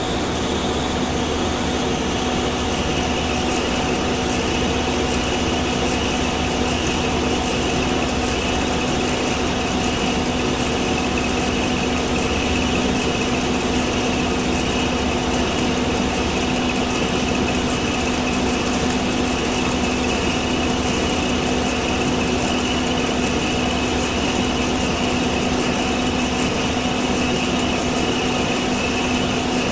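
Industrial machinery running steadily, a constant hum and whine that holds several pitches, with a faint fast ticking in the highest range.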